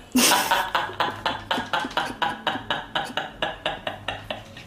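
Woman laughing hard: a long, steady run of quick 'ha' pulses, about five a second, loudest at the start and slowly fading.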